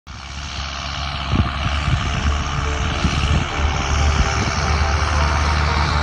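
John Deere 7710 tractor's diesel engine running steadily under load while pulling a cultivator. It fades in over the first two seconds.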